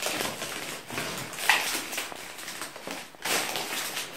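Aluminium foil wrapper of a Kinder chocolate egg crinkling and rustling unevenly as hands pull it apart.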